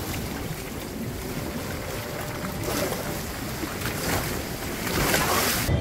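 Wind buffeting the microphone over the wash of sea water around a small sailing catamaran under way, with the noise swelling louder a few times.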